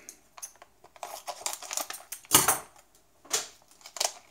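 Plastic anti-static bag crinkling and rustling as it is handled and opened, in irregular bursts with one louder crackle about halfway through.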